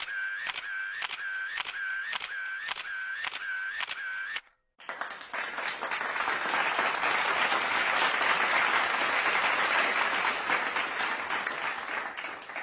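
A sound-effect clip of a short electronic tone repeating about twice a second for four seconds, then stopping. After a brief gap comes a clip of applause, hands clapping steadily, which fades near the end.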